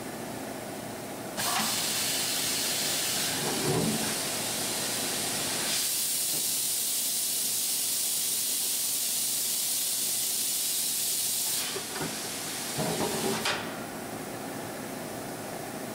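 Compressed-air hiss during an automatic tool change on a 1987 Kitamura Mycenter 2 vertical machining center, as the umbrella tool carousel swings in to the spindle and back out. The hiss starts suddenly about a second and a half in, grows louder in the middle and cuts off near the end. Mechanical knocks come about four seconds in and again shortly before the hiss stops.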